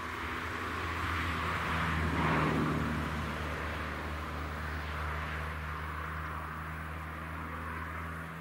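A vehicle passing by out of sight, its noise swelling to a peak about two seconds in and then fading, over a steady low hum.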